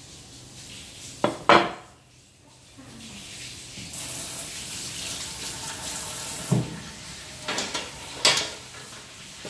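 A cleaver knocks twice on a wooden chopping board about a second in. A steady hiss follows for a few seconds, ends with a thud, and is followed by a few clattering knocks of kitchenware.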